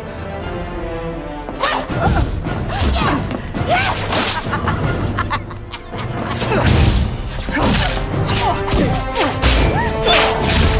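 Movie sound effects of a magical wand duel: a rapid series of whooshes, cracks and booming impacts as spells are cast and clash, over dramatic film score music.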